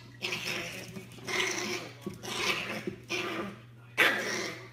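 Small fluffy white puppy barking about four times, each bark a short, rough burst with pauses between.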